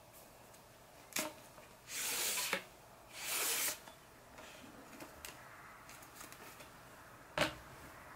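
Plastic vacuum-cleaner extension wand being handled: a sharp click, then two short scraping slides of plastic tube on plastic, and a sharp knock near the end.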